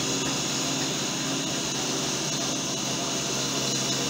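Homemade CNC router's 775 DC motor spindle running at a steady pitch while its 2.5 mm three-flute cutter mills plywood: an even hum and whine with no change in level.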